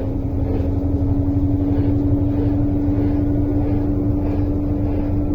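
Electrolux LTE12 top-loading washing machine spinning: a steady motor whine over a low hum, growing slightly louder. It runs without the loud bearing noise, its motor bearing freshly replaced.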